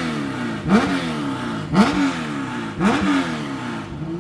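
Porsche 911 RSR's air-cooled flat-six engine being blipped three times, about once a second. Each blip rises sharply in pitch and falls back to a lumpy idle.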